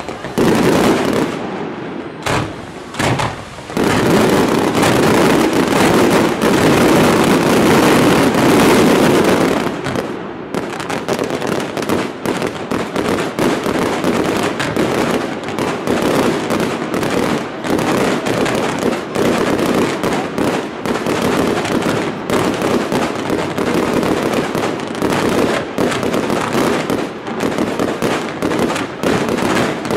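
Fireworks display going off: a few separate bangs first, then a dense, unbroken rush of noise from about four to ten seconds in, followed by a fast string of sharp bangs and pops.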